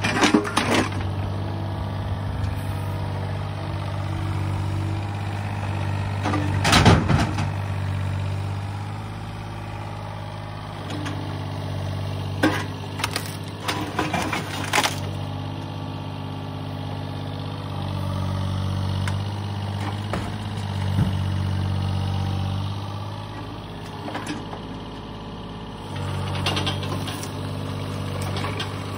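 Yanmar mini excavator's diesel engine running steadily, its note swelling and easing as the hydraulics work. Over it come several cracks and crashes of old timber and debris breaking as the bucket tears at the garage wall, the loudest about seven seconds in.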